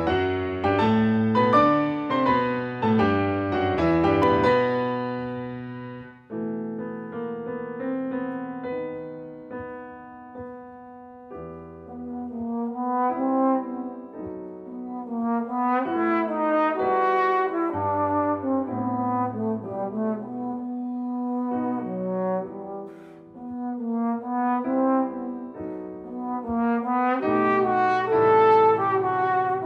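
Trombone and Steinway grand piano playing a slow, stately late-Romantic piece: a loud chordal piano introduction, then the trombone enters about six seconds in with a smooth legato melody over the piano accompaniment.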